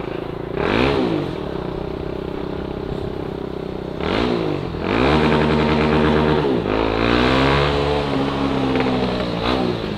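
Honda CB Twister single-cylinder motorcycle engine revved with the throttle: a quick blip about half a second in, another near four seconds, then revs held high for a few seconds, falling and rising again before settling. Revved for the noise of the exhaust.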